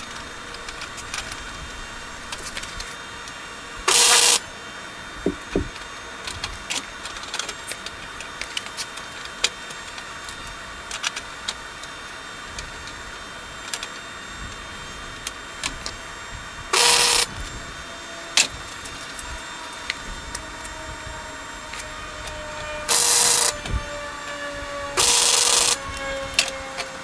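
Flux-core wire welder making four short tack welds on the horseshoes. Each is a brief burst of arc noise well under a second long: one about four seconds in, one midway, and two close together near the end. Between them come a steady hum and light clicks of steel being handled on the table.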